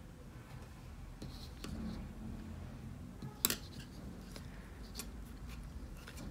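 Crochet hook and yarn being worked by hand: faint rustling and scattered light clicks, with one sharper click about three and a half seconds in.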